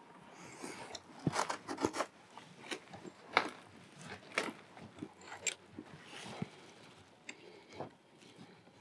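Brass Eurocone compression fitting and 16 mm multilayer pipe being pushed onto an underfloor heating manifold and the nut screwed up hand tight: irregular small clicks and crunchy handling noises.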